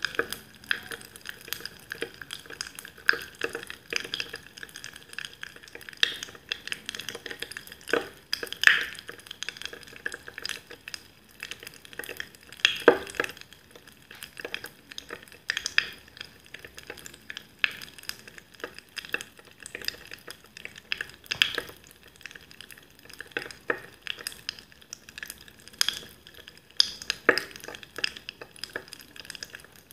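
Carbonated liquid fizzing in a glass mug: a steady crackle of many tiny bubble pops at irregular intervals, with a few sharper pops now and then.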